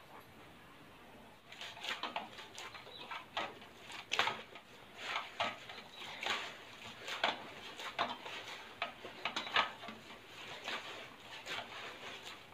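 Hand kneading soft, oiled methi paratha dough in a stainless steel bowl. After about a second and a half of quiet come irregular squishes and slaps of the dough, with knocks of the steel bowl.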